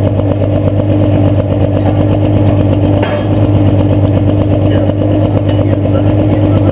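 Pulling tractor's engine running loudly at a steady, unchanging pitch under load during a tractor pull.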